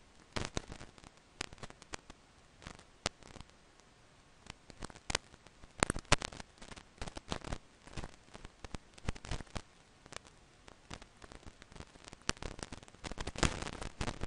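Faint, irregular crackling clicks over a low hiss, like static on the recording, with no steady rhythm.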